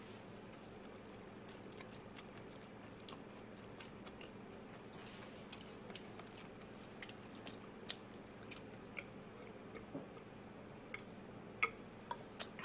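Faint chewing and crunching of fried chicken close to the microphone, with scattered small clicks and a few louder ones near the end, over a faint steady hum.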